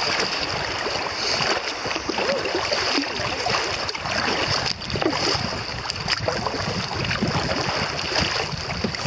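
River water rushing and splashing around a kayak running through shallow riffles, a steady churning noise with a few brief splashes of paddle strokes.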